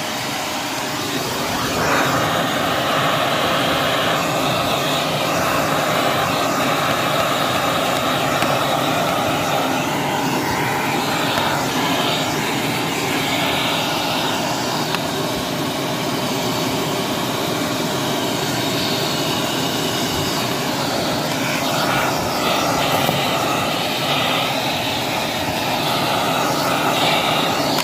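Handheld vacuum cleaner running steadily, its nozzle sucking grit out of the grooves of a sliding door track. It gets a little louder about two seconds in, and its hissing tone shifts now and then as the nozzle moves along the track.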